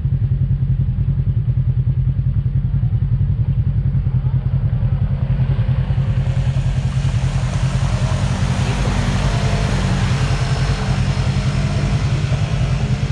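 Polaris RZR side-by-side's twin-cylinder engine idling steadily with a fast low pulse. From about six seconds in, a second off-road vehicle's engine approaching through the mud adds a growing rush of noise over the idle.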